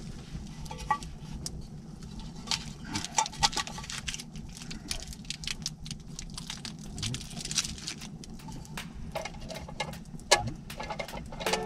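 A dense run of irregular sharp crackles and clicks over a low steady rumble, a few of them louder snaps, with the loudest about ten seconds in.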